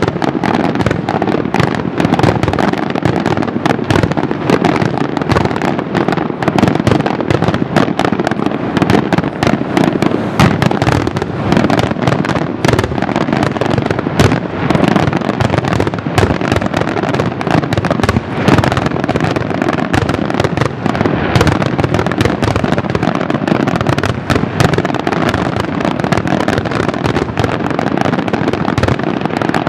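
Fireworks display: a dense, continuous barrage of bangs and crackles in rapid succession, with no pause.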